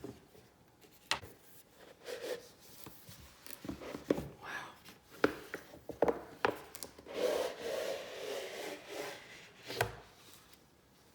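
Keyboard kit parts being unpacked and handled: scattered light knocks and taps, with a longer stretch of rubbing and sliding against the packaging in the middle.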